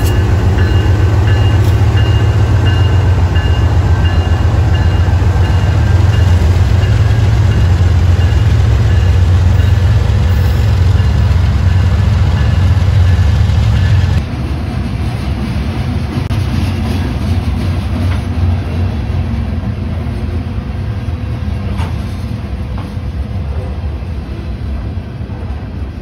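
CSX diesel-electric locomotives passing close by, their engines giving a loud, steady low rumble with a faint high whine above it. About halfway through, the sound drops suddenly as the last locomotive goes by, leaving the quieter rolling of covered hopper freight cars' wheels on the rails.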